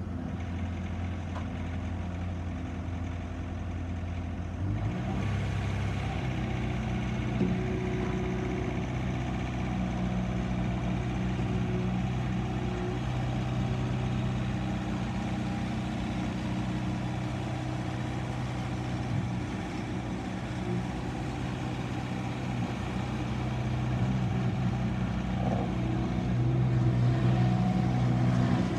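Bobcat S510 skid steer loader's diesel engine running just after starting, first at a low idle, then stepping up to a higher steady speed about five seconds in, a little louder again near the end.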